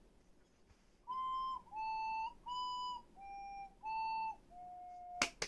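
Ceramic ocarina played over a remote lesson link: six held notes in turn, do–la–si–sol–la–fa (C, A, B, G, A, F), a broken-thirds exercise, each note about half a second with short gaps, the last ones softer. Two sharp clicks right at the end.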